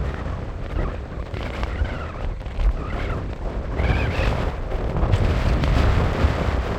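Strong desert wind buffeting the microphone in a steady rumble with gusts, and a few wavering higher whistling tones in the middle.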